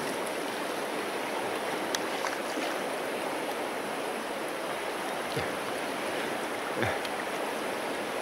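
A fast river's current rushing steadily, with a few faint ticks.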